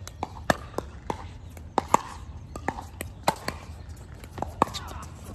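Pickleball paddles striking the hollow plastic ball in a rally: a string of sharp pocks at irregular intervals, some loud and some fainter.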